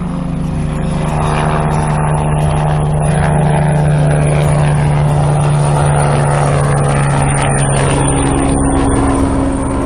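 Helicopter rotor and engine running steadily in a hover, with a sustained low hum and a dense whirring wash. It swells slightly at the start and then holds level.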